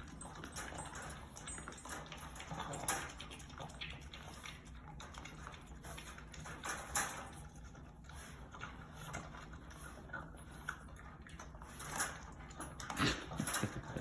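French bulldog puppy eating raw food from a bowl: scattered short licking and chewing noises, a little louder near the end.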